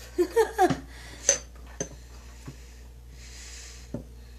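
Ceramic Scentsy wax warmer and its lid being handled: two sharp, ringing clinks about a second in, half a second apart, then a few light knocks and a brief soft hiss.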